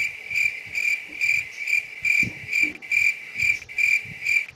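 Cricket chirping sound effect: a high, steady chirp that repeats a little more than twice a second, used as an awkward-silence gag.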